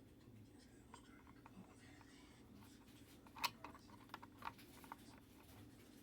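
Near silence over a low steady hum, with a handful of light clicks and taps past the middle, the sharpest one about three and a half seconds in.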